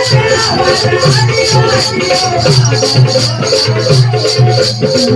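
Adivasi folk dance music: a steady low drum beat about twice a second with a high rattling pulse in time with it, under a wavering melody line.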